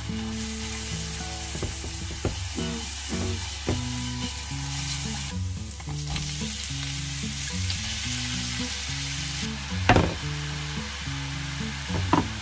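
A steady sizzling hiss over a run of short, low electronic notes that step up and down in pitch, with two loud knocks near the end.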